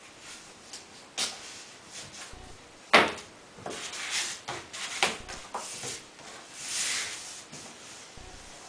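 A large vinyl wrap sheet being handled and smoothed onto a wooden cornhole board: rustling of the sheet with a few sharp knocks and taps, the loudest about three seconds in, and a longer rustle near the end.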